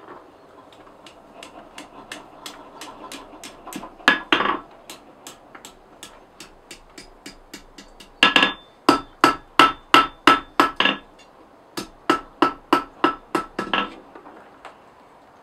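Hand hammer forging a hot 6 mm mild steel bar on an anvil. Light taps, then two runs of heavy blows about three a second, with the anvil ringing after each strike.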